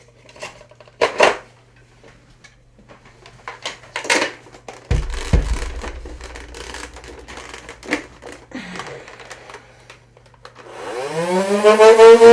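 Clicks and knocks as a Nerf Rival Khaos blaster is handled, then near the end its flywheel motors spin up on C batteries: a rising whine that levels off into a loud steady hum.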